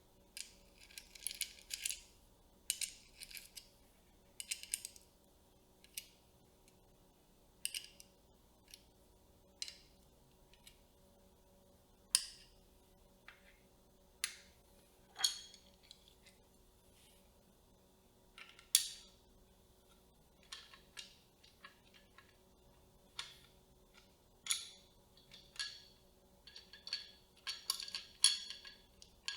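Camera rig parts being handled and fitted together: scattered sharp clicks, snaps and light metallic clinks, now and then in quick runs of several clicks, with a faint steady hum underneath.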